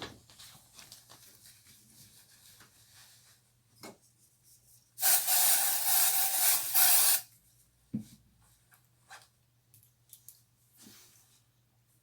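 A loud, steady spraying hiss lasting about two seconds, in the middle, with faint rustling and a couple of small knocks around it.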